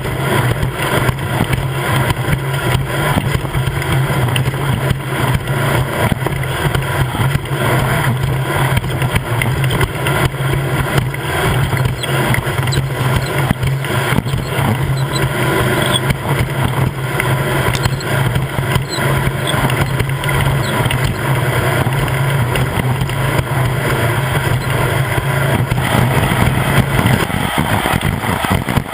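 Off-road race vehicle's engine running at a steady pitch over heavy noise, with the steady drone breaking up and changing near the end.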